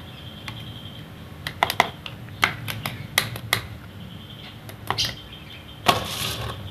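Plastic scoop tapping against a stainless-steel mesh strainer to sift kroto: a run of irregular light clicks. Near the end, a louder clatter as the strainer is set down on the tile floor.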